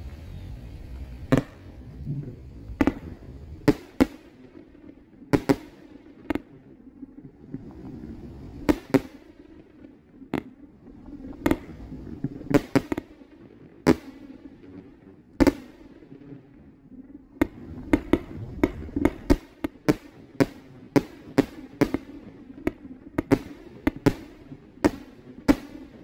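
A 30-shot consumer firework cake (Durian Warrior) firing a string of sharp shots. The first comes a little over a second in and the next follow irregularly a second or two apart; over the last eight seconds or so they come in a quick volley.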